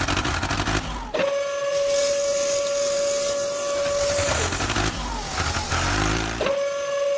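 A long, steady horn blast of about three seconds, then a second blast starting near the end, over a steady hiss.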